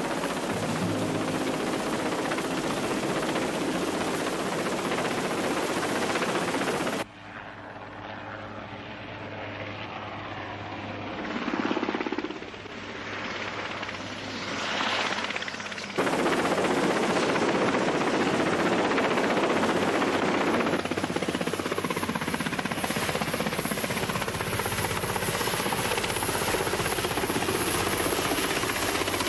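Helicopter running: loud, steady rotor and engine noise. About seven seconds in it drops suddenly to a fainter, more distant sound, then cuts back to full loudness about sixteen seconds in as the helicopter comes down low.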